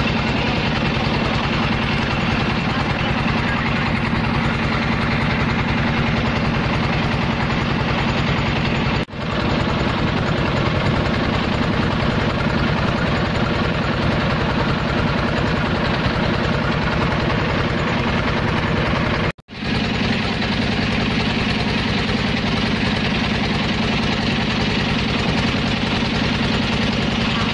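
Small passenger boat's engine running steadily under way, with an even rapid pulsing. The sound drops out briefly twice, about nine and nineteen seconds in.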